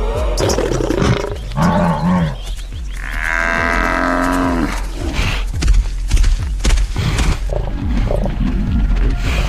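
Lions growling and snarling in a series of loud calls, the longest drawn out for over a second about three seconds in, with sharp knocks in between.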